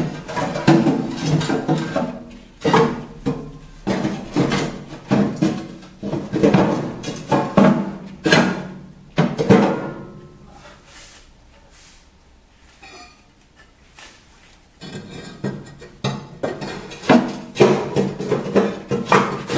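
Vermiculite lining plates being laid into a steel stove firebox: a run of irregular knocks and clinks of panels against metal, pausing for a few seconds around the middle before more knocks.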